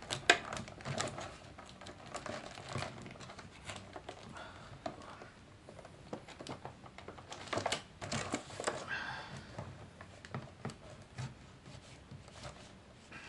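Scissors snipping through a toy's plastic blister pack and card backing, with the stiff plastic crinkling and crackling as it is cut and handled.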